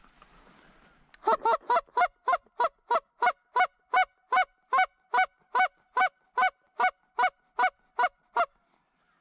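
Goose honking: a steady series of about twenty honks, close together at nearly three a second, each dropping slightly in pitch. It starts about a second in and stops shortly before the end.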